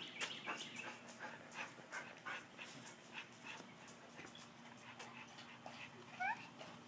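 A dog panting, about three breaths a second, with a brief rising whine near the end.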